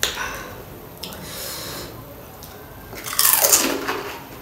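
Panipuri being dipped into pani and eaten: a short wet crack as the puri shell is pushed into the water, then a loud, crisp crunch of the shell being bitten just after three seconds in.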